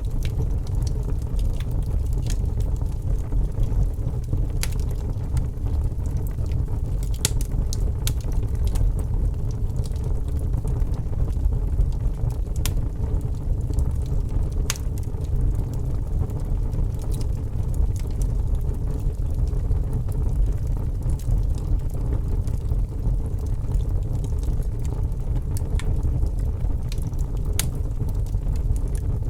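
Wood fire crackling, with a sharp pop every few seconds over a steady low rumble.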